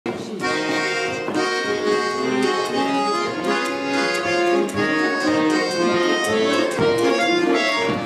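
Button accordion playing a melody over chords: the instrumental introduction to a Russian folk-style song, before the choir comes in.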